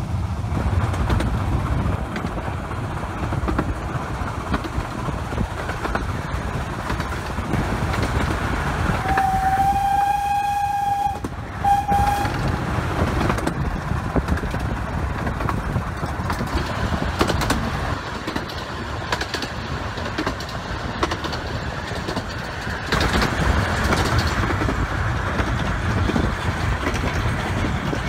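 A 15-inch gauge steam train running, heard from a carriage. About nine seconds in, a whistle sounds one long steady note, then a short one just after.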